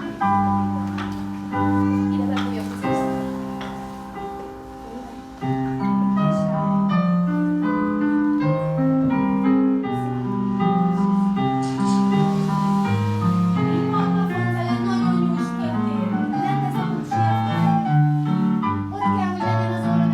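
Piano music: single notes and chords over a moving bass line at a steady pace. It softens for a couple of seconds, then comes in fuller about five seconds in.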